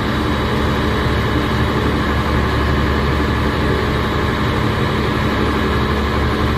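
A fishing boat's engine running with a steady, unchanging low hum.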